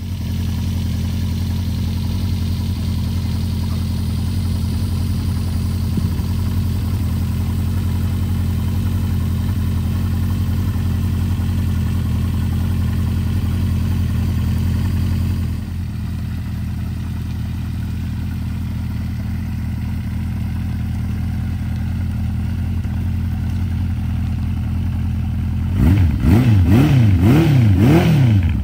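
Honda CB400F 400 Four's inline four-cylinder engine idling steadily through its four-into-one exhaust. Near the end it is revved in several quick throttle blips, the pitch rising and falling with each.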